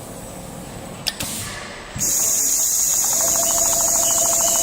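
Richpeace CNC rotary-head sewing machine starting to run about two seconds in: a loud steady high hiss comes on suddenly, and from about three seconds it is joined by the rapid, even ticking of the stitching and a steady hum.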